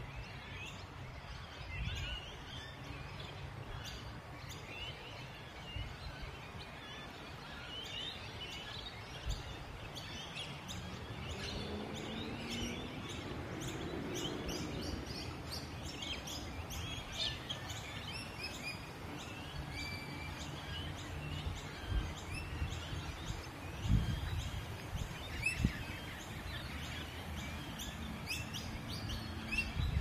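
Many wild birds chirping and calling at once, a busy chorus of short, high chirps over a low rumble of wind or handling noise on the microphone. A few low thumps come in the last third.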